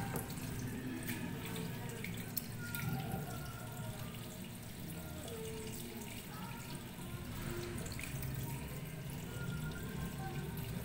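Kitchen faucet running steadily into a plastic colander in the sink, with water splashing over hands as chicken feet are rinsed under the stream.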